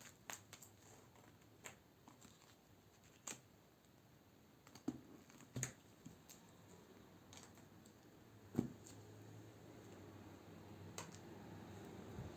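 Quiet room tone with about a dozen scattered faint clicks and light knocks. The loudest knock comes about two-thirds of the way through, and a faint low hum comes up over the last few seconds.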